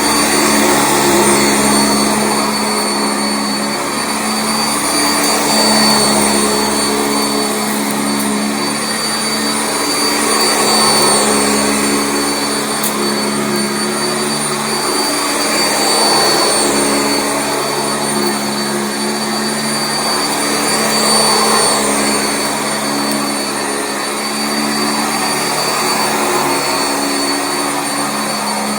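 Sanitaire SC679J commercial upright vacuum running on carpet: a steady motor drone with a high whine, its level swelling and easing about every five seconds.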